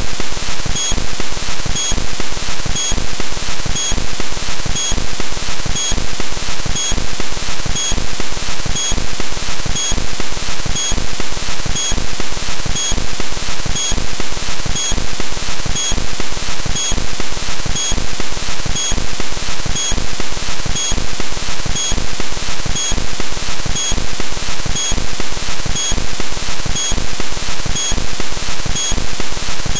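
Background music: a loud, hissy electronic track with a steady, even beat.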